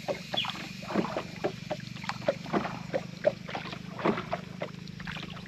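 A rapid, irregular series of short pops and gurgles, several a second, each sliding quickly down in pitch, which the listeners take to be water among the reeds around the rowboat.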